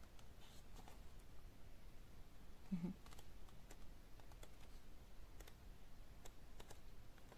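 Pages of a paperback colouring book being leafed through by hand: faint, scattered paper clicks and flicks.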